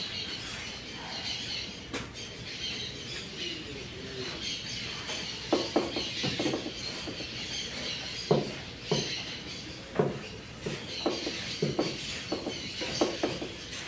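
Birds chirping in the background, with a string of short knocks and taps, like things being handled or set down, starting about five seconds in.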